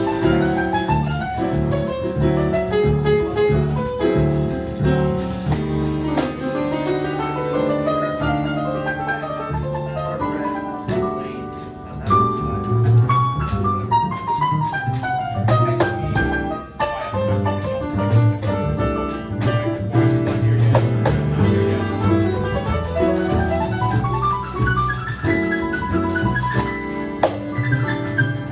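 Live band playing an instrumental passage with no singing: keyboard runs fall about halfway through and climb again near the end, over bass notes and a steady cymbal tick.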